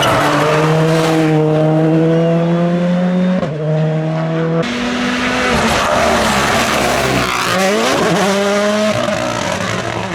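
Rally car engine accelerating hard, its pitch climbing steadily and dropping at a gear change about a third of the way in. Later the pitch falls sharply and climbs again as the car brakes, shifts down and accelerates away.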